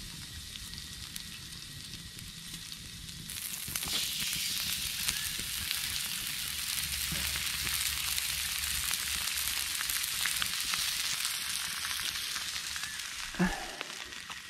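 Steak, Brussels sprouts and asparagus sizzling on a hot ribbed grill plate over a campfire. The sizzle jumps louder a little over three seconds in, as the steak goes onto the plate, and there is one brief knock near the end.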